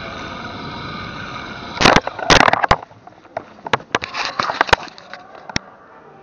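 Zipwire pulley running along a steel cable, a steady whirr with a ringing hum. About two seconds in it breaks into a burst of loud clattering knocks as it reaches the end of the line, followed by scattered metal clicks and rattles from the pulley and carabiners.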